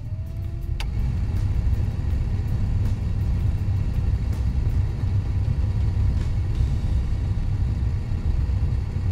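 Newly replaced heater/AC blower motor in a 1996 Chevrolet Impala running at high speed after being switched on, with air rushing steadily out of the dash vents. It builds up over the first second, then holds steady.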